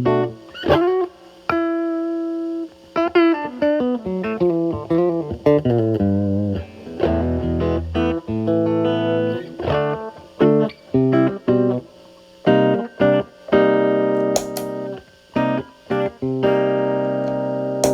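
Telecaster electric guitar played through a Fender Pugilist distortion pedal, set to Blend mode with only Gain A and Gain A turned to minimum, into a Marshall Valvestate amp on its clean channel. It plays single-note blues licks with string bends and vibrato, then sustained chords near the end.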